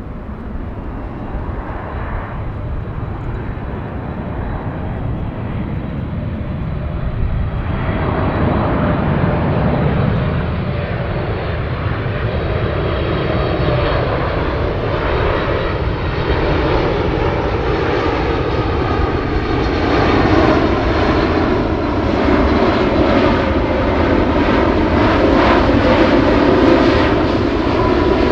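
Boeing 747-8 Freighter's four General Electric GEnx-2B67 turbofan engines on final approach, a steady jet roar that grows louder. From about eight seconds in, an engine tone runs through it and slowly falls in pitch.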